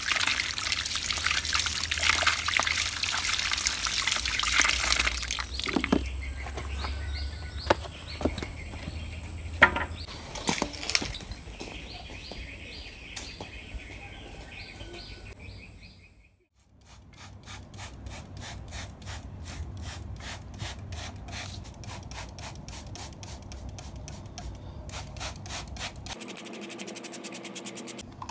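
Water running from an outdoor tap over hands for about five seconds, then stopping. Bird chirps and a steady high whine follow; after a sudden cut about sixteen seconds in, a fast, steady run of clicks takes over.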